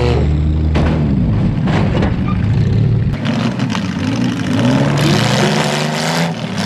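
Engines of several front-wheel-drive demolition derby cars running and revving, their pitches rising and falling and overlapping.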